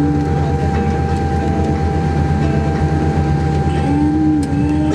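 Cabin noise in a Boeing 787-8 taxiing: a loud, steady low rumble with a couple of steady humming tones, and a low hum that wavers near the end.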